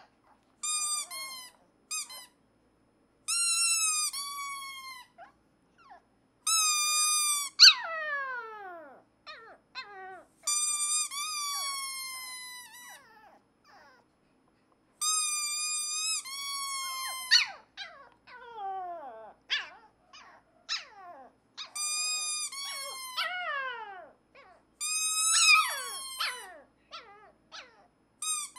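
A rubber squeaker toy squeezed over and over in long, steady, high-pitched squeaks. A black Pomeranian puppy answers with short howls that slide steeply down in pitch, several of them coming right after a squeak.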